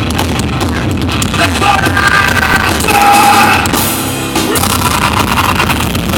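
A rock band playing live through a loud PA, with electric guitars and sung or shouted vocals; a held note stands out about halfway through, the loudest part.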